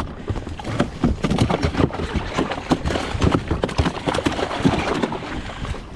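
A freshly caught mahi-mahi thrashing in the fish well of a Sea-Doo Fish Pro jet ski, making rapid, irregular thumps and knocks against the plastic hull.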